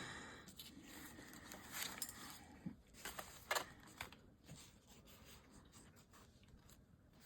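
Faint rustling of paper being handled, with a few short crisp clicks and scrapes.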